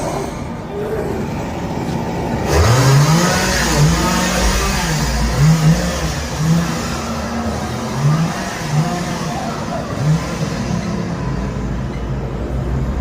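Chainsaw revved over and over from about two and a half seconds in, each rev a quick rising whine, over a steady noisy background.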